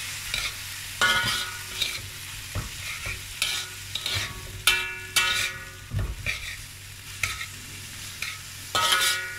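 Metal spatula scraping and striking a large metal wok while prawns and vegetables are stir-fried, with the food sizzling underneath. The strikes come irregularly, and several ring briefly with a metallic tone; the loudest is about halfway through.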